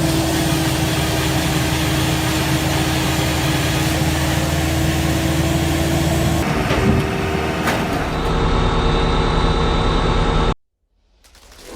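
A heavy machine's engine running steadily, with a few sharp knocks past the middle. The sound changes character partway through and cuts out abruptly for about half a second near the end.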